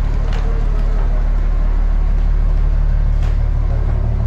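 Ferry's engine running with a steady, loud low drone, heard from inside the passenger cabin.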